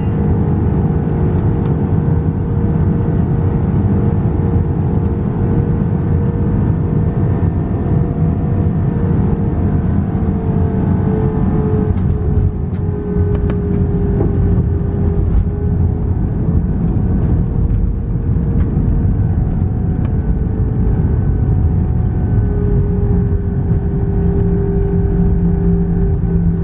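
Airbus A320 jet engine and airflow noise heard inside the cabin: a steady loud rumble with a hum and a whine that drifts slowly up and down in pitch.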